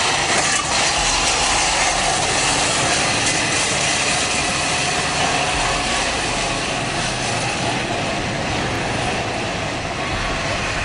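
Steady rushing noise of a moving vehicle, even and unbroken, easing off a little near the end.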